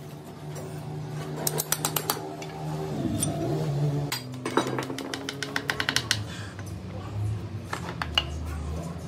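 Steel spanner and gear parts of a truck manual gearbox clinking and tapping as it is dismantled by hand, in two runs of quick metallic clicks, the first about a second and a half in and the second around the middle. A steady pitched background sound with a voice-like quality runs underneath.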